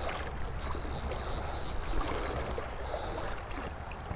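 Shallow creek water rushing steadily over a gravel riffle around a wading angler, with a few faint ticks.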